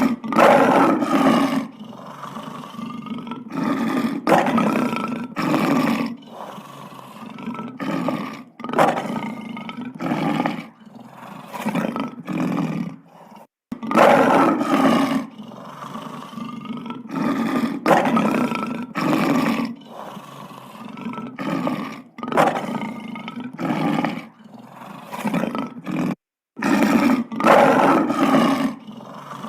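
Big cat roaring in repeated bouts: a string of loud, deep roars and grunts, one every second or two, broken twice by short cuts of silence.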